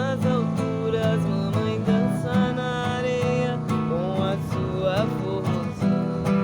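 Music with strummed acoustic guitar chords and a melody line that slides between notes above them.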